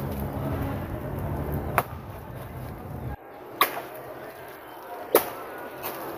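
A machete chopping into a banana plant's trunk: three sharp strikes, about a second and a half apart. A low steady hum in the background cuts off abruptly a little after the first strike.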